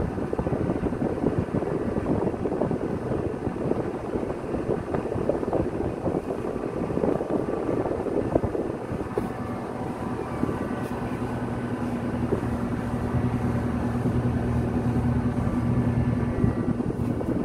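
Wind buffeting the microphone on a ship's open bridge wing, gusting unevenly, with a steady low machinery hum coming in about ten seconds in.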